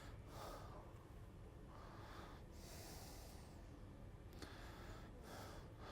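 Faint, slow breathing close to the microphone, a soft breath about every two seconds, over near silence.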